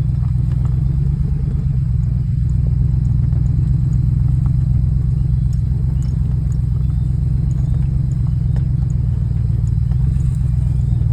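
A vehicle's engine running at a steady speed, a low unbroken drone, heard close up as from on board while driving over the field, with a few faint ticks and rattles.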